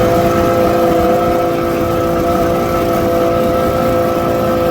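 Motorboat engine running at a steady speed, a constant pitched drone over a rushing rumble.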